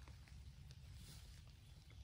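Near silence: faint outdoor ambience with a steady low rumble and a few scattered soft ticks.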